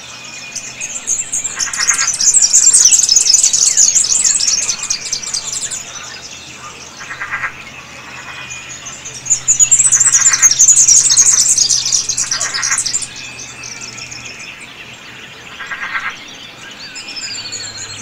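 Wetland birds calling: two long stretches of rapid, high-pitched chattering, about a second in and again near the middle, with a short buzzy pulsed call repeating every few seconds.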